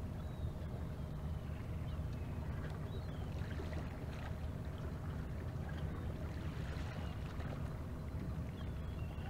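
Steady low drone of a fishing boat's engine running at cruising speed, with a thin steady tone running through it and a few faint short chirps above it.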